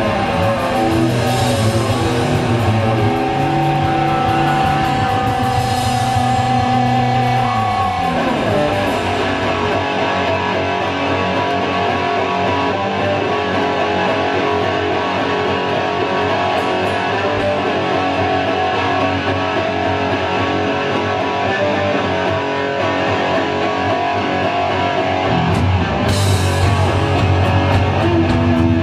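A live rock band with loud distorted electric guitar and no vocals. The guitar holds long notes, then slides down in pitch about eight seconds in. The bass end drops away for a long stretch, and the full band comes back in near the end.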